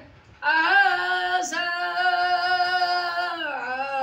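A boy singing a Bengali naat unaccompanied. After a short breath he holds one long note from about half a second in, and the note slides lower near the end.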